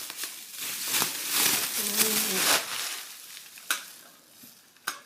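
Plastic packaging rustling and crinkling for a couple of seconds as shelf pieces are unwrapped, then two sharp clicks as parts are handled.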